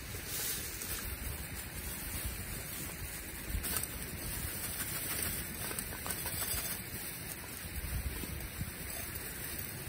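A wood campfire burning with a steady hiss and scattered faint crackles, with low wind rumble on the microphone.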